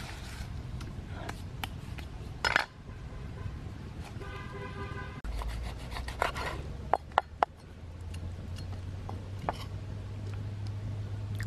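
A kitchen knife cutting a lime on a wooden chopping board, with a quick run of sharp taps of the blade on the board a few seconds after the middle, over steady background noise. A single knock sounds earlier, and a brief pitched tone sounds about four seconds in.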